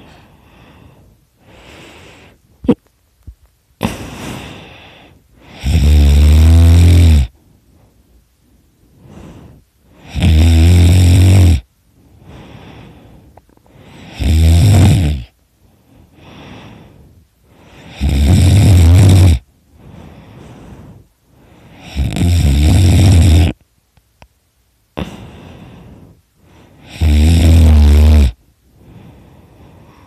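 A person snoring extremely loudly in sleep. There are six loud, rattling snores about every four seconds, each lasting a second or so, with soft breathing between them.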